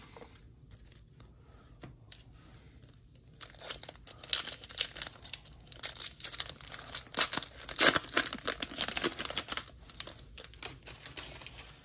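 Foil wrapper of a baseball card pack being torn open and crinkled by hand: a dense, crackly tearing that starts about three seconds in, peaks a little past the middle, and dies down near the end.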